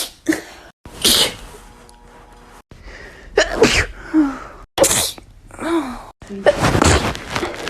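About four sneezes in quick succession, each a short, sharp burst, with abrupt cuts between them as one clip gives way to the next.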